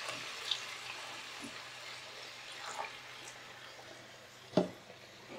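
Soft, steady hiss of a pan of masala simmering after about a cup of water is added, slowly dying down, with a few faint ticks. A single knock about four and a half seconds in.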